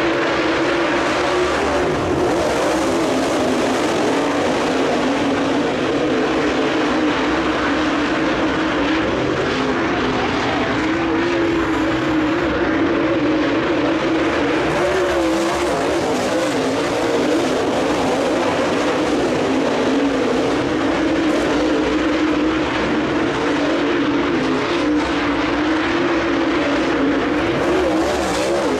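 A field of dirt late model race cars with V8 engines running hard at racing speed. Their engine notes blend into one steady, loud drone that wavers slightly up and down in pitch.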